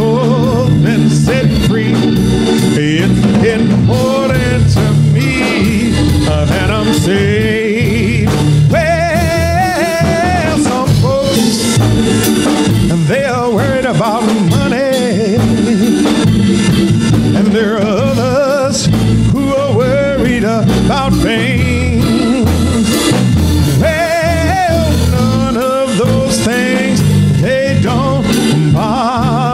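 A man singing a gospel song into a hand microphone over live band accompaniment, his voice wavering with vibrato.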